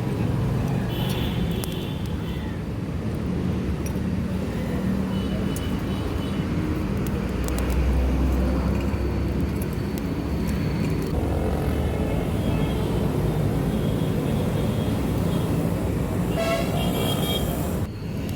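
Steady street noise of passing road traffic, with a few brief horn toots near the start and near the end.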